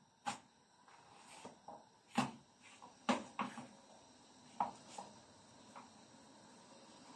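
Cooked flatbreads being handled on a plate: a string of light taps and clicks, about six over several seconds, as the breads are lifted, turned and laid back down.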